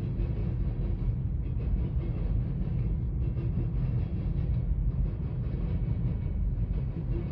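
Empty covered hopper cars of a freight grain train rolling past: a steady low rumble of steel wheels on the rails.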